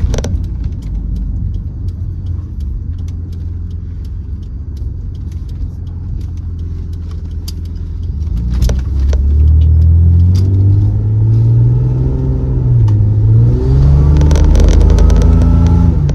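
Supercharged 3.8-litre L67 V6 of a Holden Commodore under way: steady running at first, then from about eight seconds in the engine note climbs under acceleration, dips briefly as if at a gear change and climbs again. A thin supercharger whine rises with it near the end.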